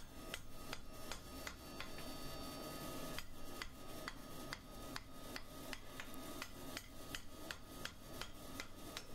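Hand hammer striking a red-hot ¾-inch square steel bar on an anvil, about three light blows a second in a steady rhythm, each with a faint ring. The hot end is being rounded off and tucked back into itself to shape the back of a forged skull.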